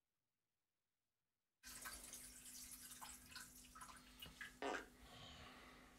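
Dead silence for about a second and a half, then faint bathroom room tone: a steady low hum with scattered small drips and ticks, and one louder short knock about three-quarters of the way through.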